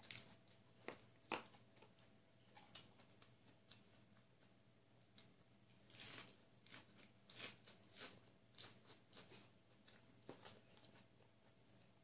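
A person eating close to the microphone: chewing and crunching lettuce and grilled chicken, with irregular mouth smacks and clicks.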